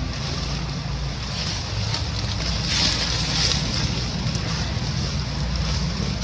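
Wind buffeting the microphone: a steady low rumble under a high hiss that swells briefly about three seconds in.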